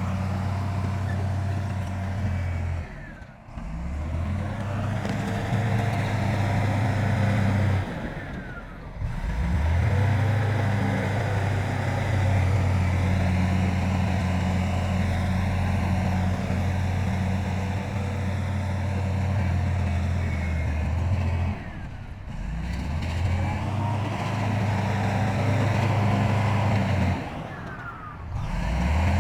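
Heavy diesel engine of earthmoving machinery running steadily with a deep hum. The sound drops out briefly four times.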